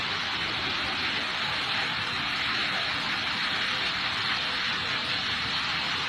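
River in flash flood, the muddy water rushing fast: a steady, even rushing noise.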